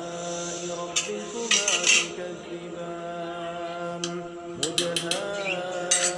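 A metal spoon clinking and scraping against a stainless-steel kadai as curry is stirred: a few sharp clinks about a second in, a cluster around two seconds, and more near the end. Steady background music with held, chant-like vocal tones runs underneath.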